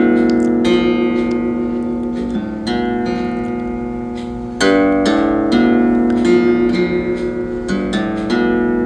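Background music: a plucked guitar playing chords that ring and fade, with a louder strum about halfway through.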